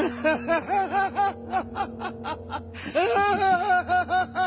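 A man laughing in quick, evenly repeated 'ha-ha' pulses, about four a second, in two long bouts, the second starting about three seconds in. A steady held music tone sounds underneath.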